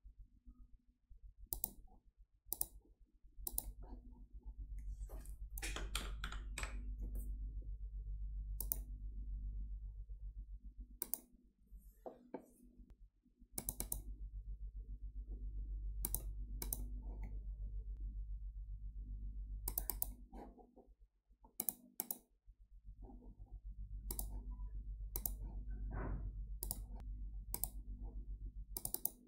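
Computer mouse clicking: scattered single clicks and quick double clicks over a steady low hum.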